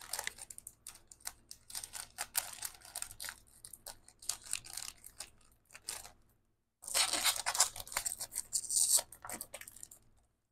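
Scrapbook paper rustling and crinkling as a pack is handled, in two spells of dense crackling with a short pause about two-thirds of the way through.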